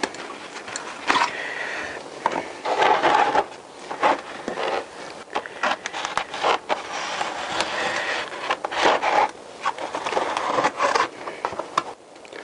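A large knife slicing and scraping through the tape and wrapping of a cardboard parcel, in irregular strokes with small clicks and crinkles.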